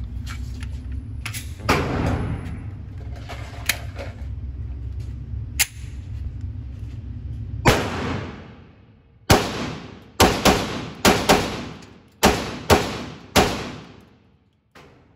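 Gunshots, each with a ringing tail: a few spaced shots, then a quicker string of about eight shots over the last six seconds.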